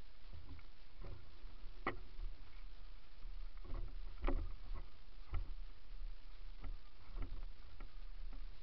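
Mountain bike descending a rough dirt singletrack: a steady low rumble of riding noise with scattered clicks and knocks as the bike rattles over bumps. The loudest knocks come about two seconds and about four seconds in.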